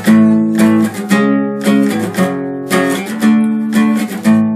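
Acoustic guitar strummed in a steady rhythm, each chord stroke ringing on into the next.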